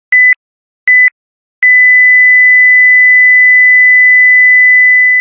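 Countdown timer's electronic beep: two short, high pure-tone beeps about three-quarters of a second apart, then one long steady beep from about a second and a half in, the final tone that marks the countdown reaching zero.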